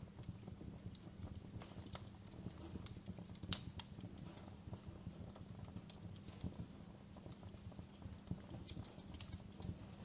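Wood fire in a fireplace crackling: irregular sharp pops and snaps over a low steady rumble, with one louder pop about three and a half seconds in.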